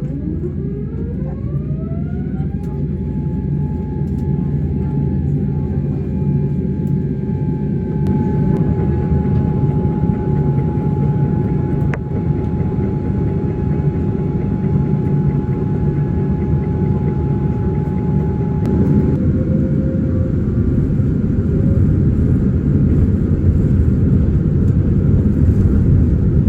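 Rolls-Royce Trent 1000 engines of a Boeing 787-9 heard from inside the cabin, their whine rising in pitch over the first few seconds and then holding steady. The whine fades about two thirds of the way in, while a low rumble grows louder toward the end as the takeoff roll begins.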